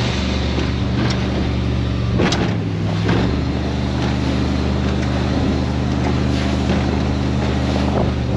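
A 27-foot Baja powerboat's engine running steadily at speed under a constant rush of wind and water. About two seconds in there is a thump, and the engine note dips for about a second before it comes back up.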